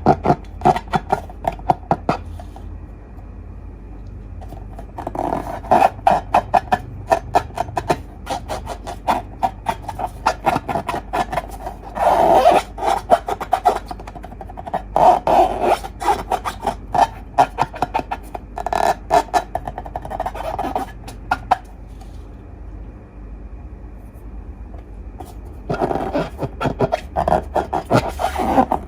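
Slime being squeezed and kneaded by hand, giving off runs of sticky crackling clicks in bursts, with two quieter pauses between them. A steady low hum sits underneath.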